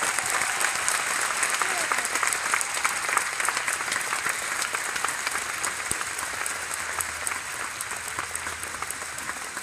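Audience applauding, strongest over the first few seconds and then slowly dying down.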